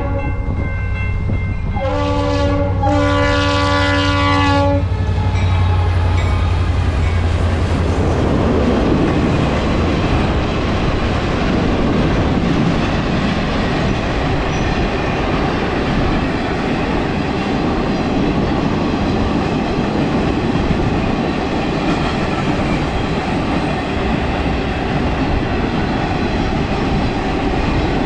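Freight locomotive's air horn sounding the grade-crossing signal: a long blast ending just after the start, then a short blast and a longer final one about two to five seconds in. A low diesel engine rumble passes within the first several seconds, and then freight cars roll by with steady wheel noise and clickety-clack over the rail joints.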